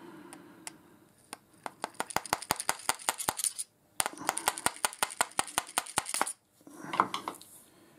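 Rapid light metal-on-metal tapping: a long thin screwdriver knocked against the inside of a lathe live centre's hollow steel shaft, about five to six taps a second with a short break in the middle. It is an attempt to drive out the centre's internal parts, which will not come apart.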